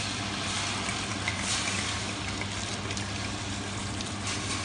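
Red wine poured in a steady stream from a bottle into a large stainless-steel pot of caramelized onions.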